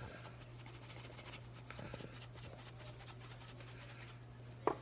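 Faint soft rattling of seasoning shaken from an Old Bay tin into a bowl of cornmeal breading, over a steady low hum, with one sharp click near the end.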